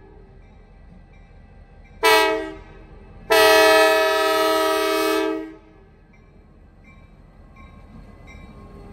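EMD SD40-2 diesel locomotive's air horn blowing for a grade crossing: a short blast about two seconds in, then a long blast of about two seconds, a chord of several tones. Under it runs the low rumble of the approaching train.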